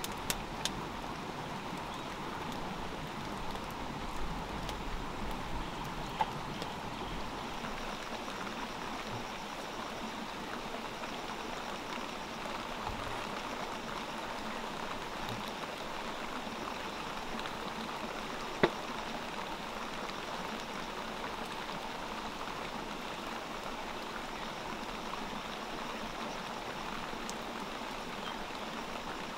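Steady rain falling on forest vegetation, an even hiss throughout, with a few sharp clicks, the loudest about two-thirds of the way in.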